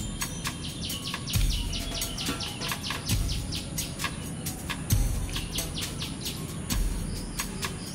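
Background music with a soft low beat about every two seconds, under a dense patter of quick high ticks or chirps.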